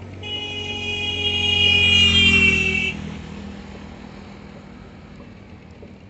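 An engine passing close by: a steady pitched drone with a high whine that swells for about two and a half seconds, drops slightly in pitch about three seconds in, then fades away.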